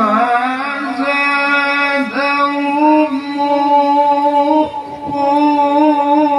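A man chanting the Quran in the melodic tilawah style, amplified through a handheld microphone: long held, ornamented notes with vibrato and pitch slides on one vowel, with a short breath about three quarters of the way through.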